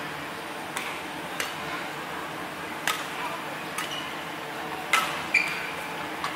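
Badminton rally: rackets striking the shuttlecock with about six sharp cracks spaced roughly a second apart, the last two the loudest.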